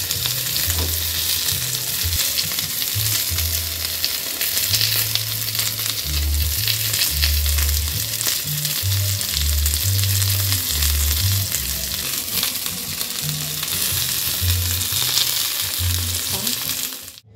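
Hamburger patties frying in oil in a stainless steel pan: a steady sizzling hiss with fine crackling. The sound cuts off suddenly at the very end.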